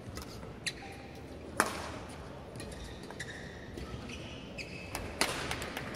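Badminton hall noise, with two sharp smacks about a second and a half in and near the end, several lighter clicks, and a few short high squeaks from play on the court.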